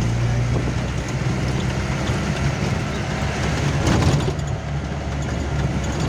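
Jeep engine running steadily on the move, with constant road noise and a brief louder surge about four seconds in.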